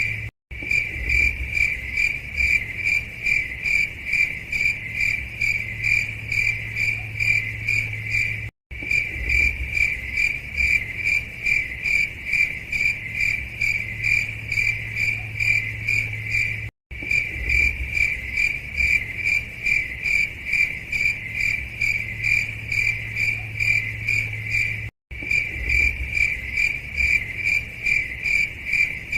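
Cricket chirping in a steady, even rhythm over a low hum, broken by a brief silent gap about every eight seconds where the recording loops.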